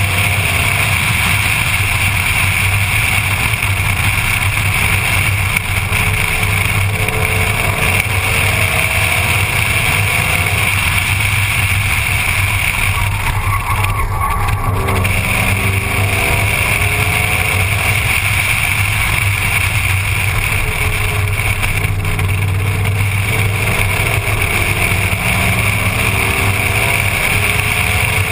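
Ford Mustang at speed on a race track, heard from a camera mounted outside the driver's window. Its engine note rises and falls faintly, under loud, steady wind and road noise.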